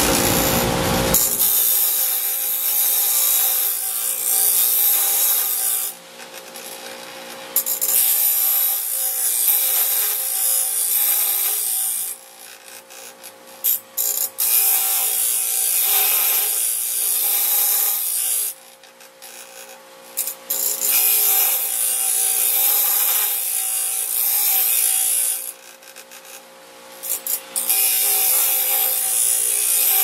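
Small bench grinder's abrasive wheel grinding the steel of a sawmill bandsaw blade to sharpen it: a harsh, steady grinding hiss over the motor's hum. It breaks off four times for a second or two, leaving only the motor running.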